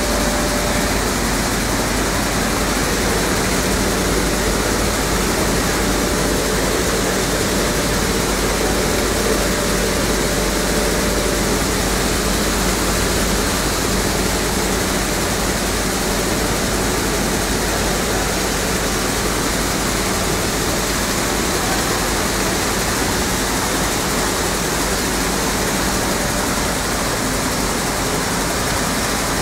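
Automatic stone flour mill (atta chakki) plant running: a loud, steady mechanical rush with a faint hum under it, the motors, grain cleaner and grinding stones all working together.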